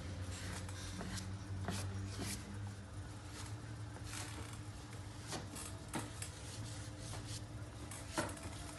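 Square stick of sanguine (red chalk) scratching and rubbing across drawing paper in short, irregular strokes, over a faint low hum. A sharper tap or scrape stands out near the end.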